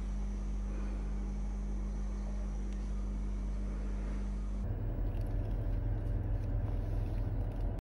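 A steady low hum, then about five seconds in, a low, uneven rumble inside a car's cabin.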